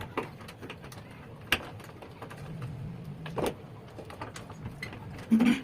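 Scattered clicks and knocks of a hand tool working on the fixing screws of a washing machine's gearbox. A sharp click comes about a second and a half in, a dull knock after three seconds, and the loudest knock near the end.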